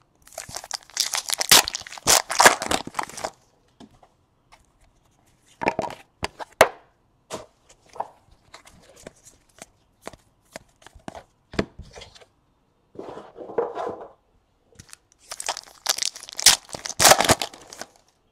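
Foil trading-card packs being torn open and crinkled. There are two bursts of ripping, about a second in and again near the end, with light clicks and taps of cards being handled between them.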